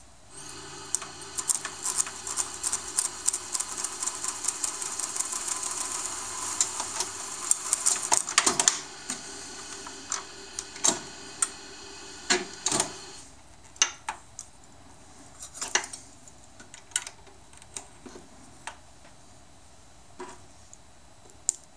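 Reel-to-reel tape machine and metal tape reel being handled: a steady mechanical whir with many sharp clicks for about the first nine seconds, then scattered clicks and knocks from the reel and the transport buttons.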